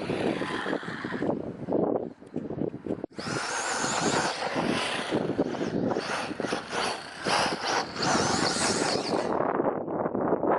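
Wind buffeting the microphone over a 2WD short-course RC truck, its brushless electric motor whining in a rising and falling pitch as it drives across rough ground. The sound dips briefly about three seconds in.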